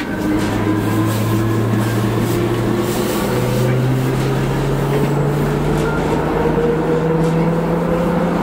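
Milan M5 driverless metro train (AnsaldoBreda Driverless Metro) accelerating in a tunnel: the electric traction drive's whine climbs steadily in pitch, stepping up about three seconds in, over the steady running noise of wheels on rail, heard from inside the front car.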